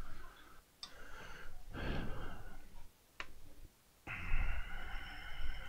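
A man breathing close to the microphone: two long breaths of hiss, with a single sharp click about three seconds in.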